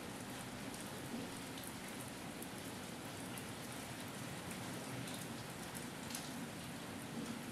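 Light drizzle falling steadily, with scattered drops ticking against surfaces.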